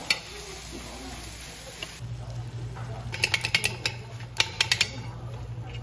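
Tableware being handled at a meal: two quick clusters of sharp clinks and clicks from spoons and dishes, over a steady low hum.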